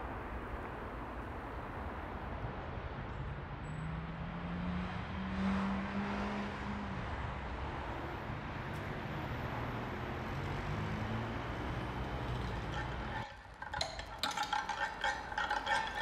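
Street traffic ambience: a steady hum of road noise with car engines passing. About thirteen seconds in it cuts off and gives way to a run of sharp, ringing clinks.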